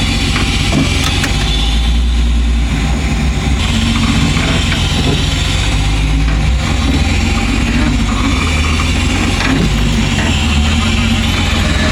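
A vehicle engine running steadily at low revs, a continuous low rumble with a few faint clicks and knocks over it.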